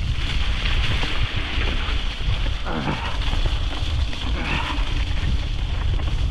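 Wind buffeting a helmet-mounted microphone while a bike rolls fast over a dirt trail behind a team of two pulling dogs, with a brief falling squeal about three seconds in.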